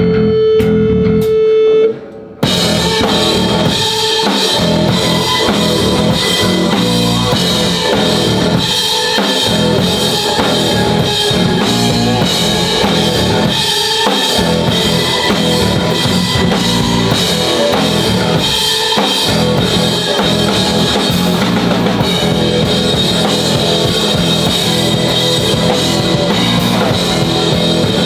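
Live rock band: a single held note for about the first two seconds, then drum kit, bass and electric guitar come in together and play on at full volume.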